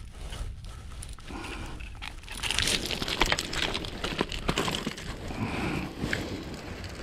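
Beach pebbles crunching and clattering, mixed with sharp metallic clicks of pliers and hooks as a metal jig is worked out of a caught flounder's mouth; the crunching and clicking grow louder and busier from about two and a half seconds in.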